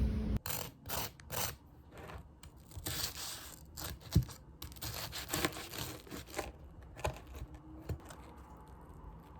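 Irregular rustling and crinkling with some tearing, like material being handled and pulled apart, and a few sharp knocks. It is busiest in the first half and thins out toward the end.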